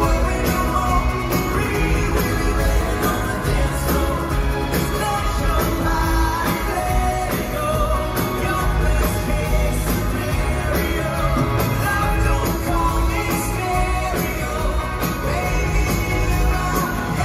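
Live rock band playing through a concert PA, heard from the crowd: drums, electric guitars and keyboard under a male lead singer, at a steady loud level.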